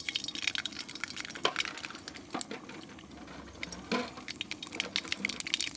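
Mustard seeds crackling and popping in hot oil in an iron kadhai: a dense, irregular crackle of tiny pops. A few louder knocks come from the metal spatula against the pan.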